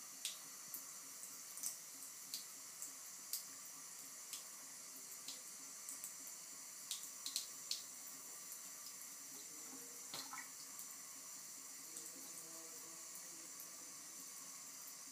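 Bathroom faucet running in a thin trickle into the sink, a faint steady hiss of water. Short, irregular splashy ticks come over it as a cat laps at the stream, the loudest a few in quick succession about halfway through.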